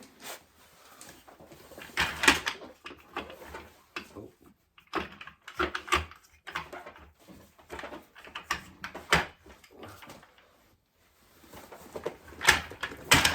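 Irregular knocks, clunks and rattles of gaming chair parts being handled and fitted together as the base goes onto the chair, with rustling in between.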